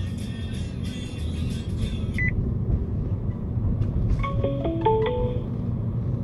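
Steady low road and engine rumble inside a moving car. Music cuts off about two seconds in, and about four seconds in a mobile phone's ringtone plays a short electronic melody of beeps stepping up and down in pitch: an incoming call.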